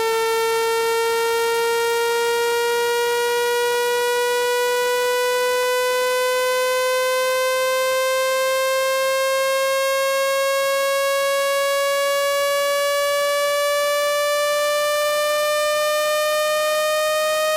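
Synthetic buzzing test tone, rich in overtones, played through a phone speaker to shake out water and dust. It rises slowly and evenly in pitch throughout, at a constant loud level.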